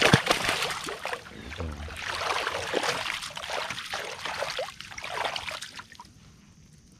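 A small fish thrown back into the lake hits the water with a sharp splash, followed by several seconds of water splashing and trickling beside the kayak that dies away near the end.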